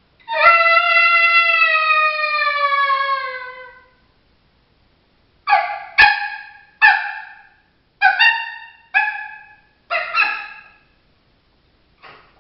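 Coyote calls made on an MFK diaphragm mouth call. First comes one long howl that slowly falls in pitch. Then about eight short barks follow, singly and in quick pairs, each dropping in pitch, with a faint last one near the end.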